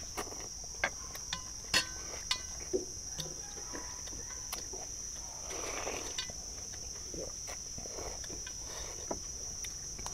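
Chopsticks clicking against stainless steel bowls and loud slurping of noodles, with sharp taps scattered through and a long slurp about six seconds in. A steady high chirring of insects runs underneath.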